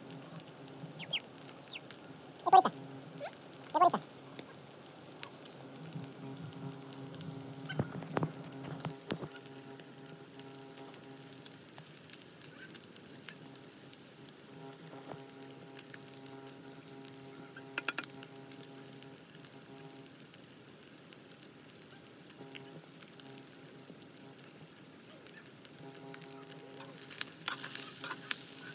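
Chicken pieces sizzling as they fry in a black wok over a wood fire, steady throughout. Two loud, sharp clicks a few seconds in.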